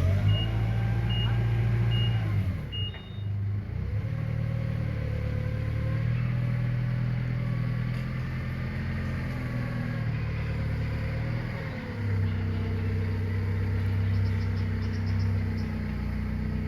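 Engine of a three-wheeled farm tractor running steadily, its pitch rising and falling a few times as the revs change. A row of short, evenly spaced high beeps sounds during the first three seconds.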